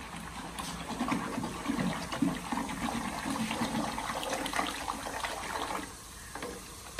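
Lassi with gram flour being churned in a steel pot with a wooden churning stick spun between the palms: liquid sloshing and swirling with light clicks, dying down about six seconds in.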